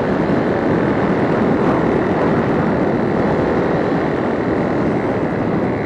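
Steady rushing wind noise on an external microphone while riding a motorcycle, with the motorcycle running underneath.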